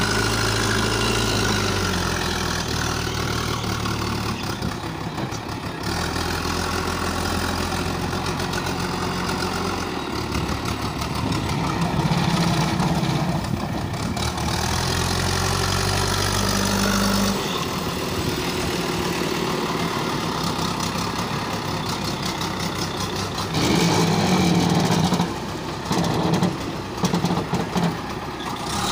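JCB 3DX backhoe loader's diesel engine running steadily as it works a sand pile and carries a loaded front bucket. Its note changes several times and grows louder near the end as the bucket is raised over the trolley.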